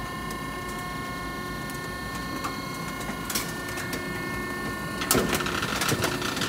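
Cram-A-Lot hydraulic baler's motor and pump running with a steady hum of several fixed tones, while plastic inside cracks under the ram; about five seconds in the crackling and snapping gets louder.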